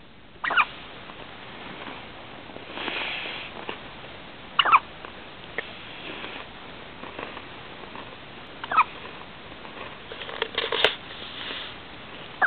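Newborn baby hiccuping: four short, high-pitched hics about four seconds apart, with a few soft clicks and rustles near the end.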